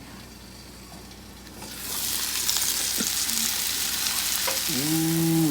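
Pork chops sizzling in a hot frying pan. The sizzle comes up loud about two seconds in and then holds steady. A short hummed vocal sound comes near the end.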